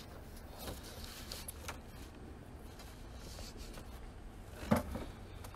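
Faint room tone, with one brief soft sound a little before the end.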